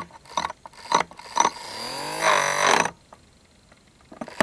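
Small toy DC motor with a plastic propeller being slowed by fingertips pressed on the blades. There are ticks and knocks of blade against finger, then the motor's whine rises briefly and falls away as it is held, and it is stopped for about the last second and a half.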